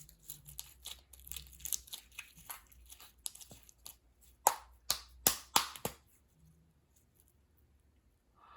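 Homemade glue slime being squished and stretched by hand, giving a run of wet crackles with a few louder pops about four and a half to six seconds in, then going quiet.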